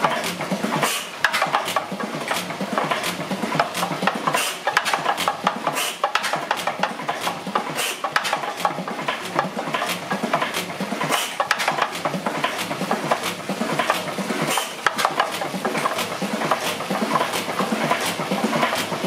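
1910 Crossley hit-and-miss engine running, with a continuous clatter of quick clicks and knocks from its moving parts.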